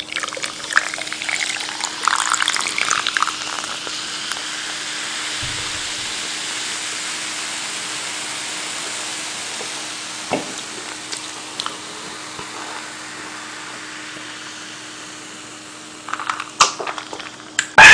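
Coca-Cola poured from a can into a plastic cup: a splashy pour at first, then a steady fizzing hiss of carbonation that slowly fades, with a few light clicks near the end.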